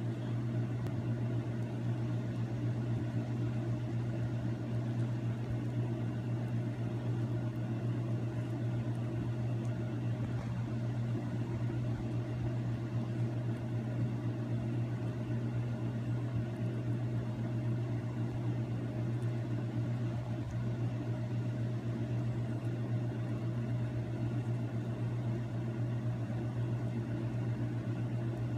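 Steady low mechanical hum with a light hiss, unchanging throughout.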